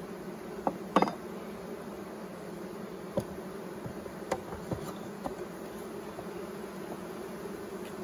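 Honeybees buzzing in a steady hum around an open hive, with several sharp knocks and clicks from handling the wooden hive frames, the loudest about a second in.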